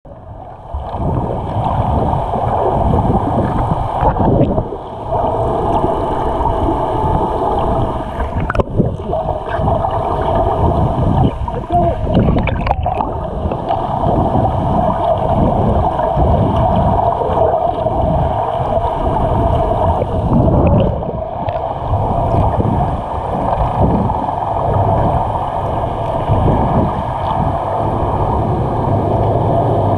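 Underwater recording: a low, uneven rush of water moving against the camera, with a steady whine from a boat's engine carried through the water and a couple of sharp knocks.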